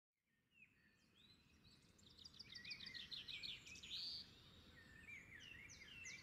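Faint birdsong: quick runs of high chirping notes and whistled slurs, over a steady low background rumble. It fades in during the first second.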